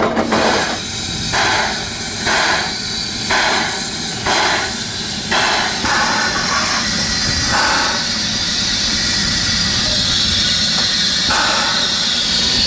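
Steam-driven air pump (air compressor) on the side of 1909 steam locomotive A 428 working in regular strokes about once a second, then a couple of slower strokes further apart, over a steady hiss of escaping steam.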